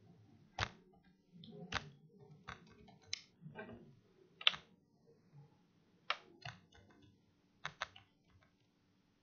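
Scattered keystrokes on a computer keyboard: single sharp taps at an uneven pace, a fraction of a second to over a second apart, with a pair of close clicks near the end.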